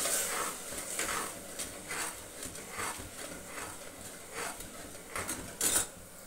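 Long metal spoon stirring sugar syrup that has just come to the boil in a metal pot, scraping against the pot in short strokes about twice a second. A louder clink comes near the end as the spoon is set down in the pot.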